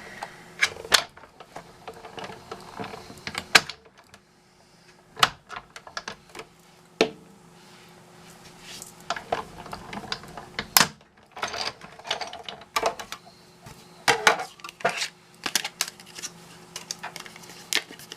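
Hand-cranked Big Shot die-cutting machine being run, with irregular clicks and knocks of the crank, cutting plates and metal dies, and a quieter few seconds partway through.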